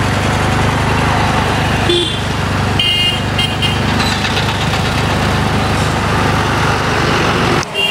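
Street traffic heard from a moving vehicle: a steady engine drone under road noise, with a few short horn honks about two seconds and three seconds in.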